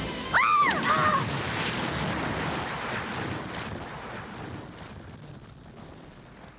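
Grenade explosion sound effect: a sudden blast about half a second in, with a short rising-and-falling wail over it. The blast then dies away slowly as a long hiss over several seconds.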